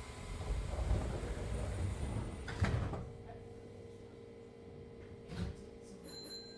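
Passenger sliding doors of a Semboku Rapid Railway 7000 series train running along their track for about two and a half seconds and meeting their stop with a knock. A steady low hum follows, with one more short knock near the end.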